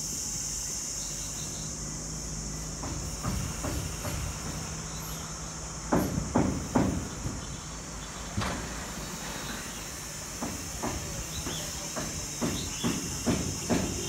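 Irregular knocks on a corrugated metal roof, sparse at first and coming faster, about two or three a second, near the end, over a steady high-pitched hiss.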